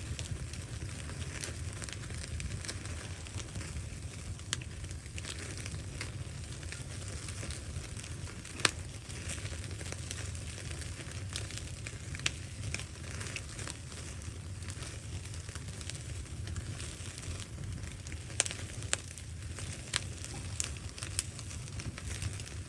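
Wood fire crackling, with irregular sharp pops (one louder about a third of the way in, several more near the end) over a steady low rumble.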